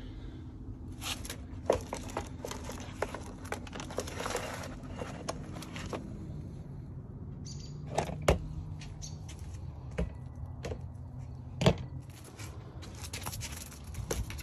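Handling noise from a blue plastic scoop with a muskrat in it, being carried and tipped out onto concrete: rustling, scrapes and scattered clicks, with two louder sharp knocks, one about eight seconds in and one near twelve seconds. A steady low hum runs underneath.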